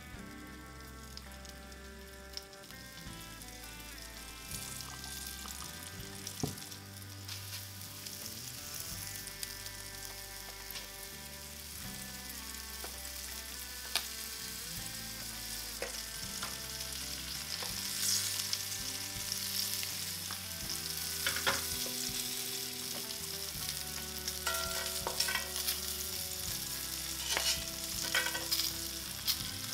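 Flour-coated ribbon fish frying in a cast iron skillet over medium-high heat: a sizzle that grows louder as more pieces go into the pan, with scattered pops and crackles.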